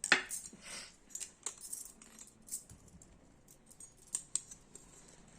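Light clicks and clinks against a bowl as a little salt is added to cumin seeds and chopped ginger. The sharpest clink comes right at the start, followed by scattered lighter taps.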